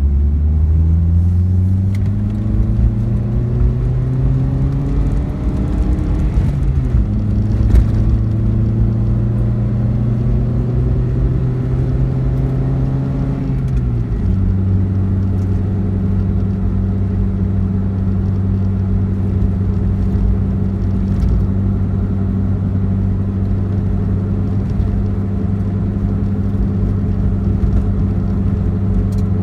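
Car on the move: the engine and drivetrain hum rises in pitch over the first few seconds, levels off, drops suddenly about fourteen seconds in, then holds steady over a low road rumble. The drive is being made to track down an abnormal noise (異音) whose source is not identified.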